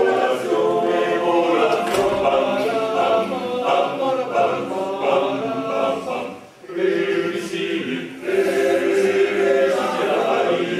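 Male choir singing a cappella in several voices, with a brief pause between phrases about six and a half seconds in.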